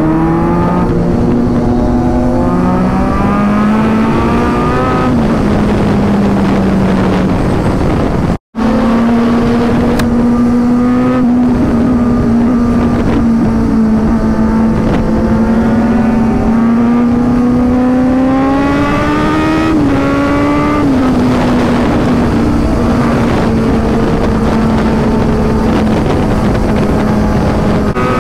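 Kawasaki Z900's inline-four engine pulling hard at highway speed, its pitch climbing as it revs and dropping at upshifts, over steady wind rush. The sound cuts out for a split second about eight seconds in.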